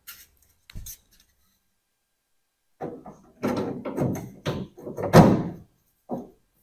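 Clunks and knocks of a plastic-and-metal tail-light assembly being handled against the car's rear body panel. There is a short thump about a second in, then a busy run of knocks and rattles from about three to five and a half seconds in, and one last knock near the end.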